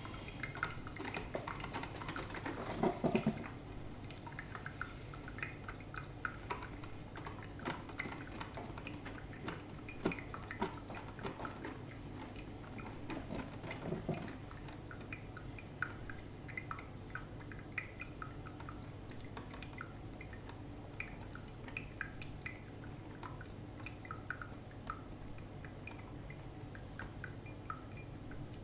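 Drip filter coffee maker brewing: irregular drips and small ticking sputters of water, with louder gurgles in the first few seconds and again about halfway through, over a low steady hum.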